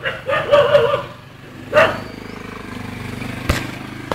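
A dog whines in high, drawn-out cries in the first second, then a motor vehicle engine runs steadily with a low, even hum from about halfway in.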